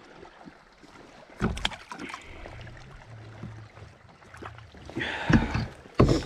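Handling noise on a plastic fishing kayak: several sharp knocks of gear against the hull, with water lapping at the boat and a low hum lasting about two seconds in the middle.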